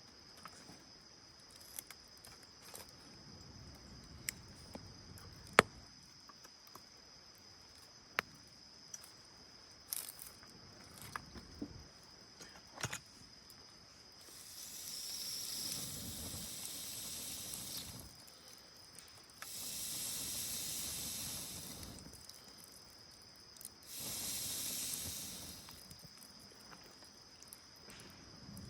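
Campfire burning with sharp, scattered pops and crackles, then three long hissing rushes of a few seconds each. A steady high insect trill runs underneath.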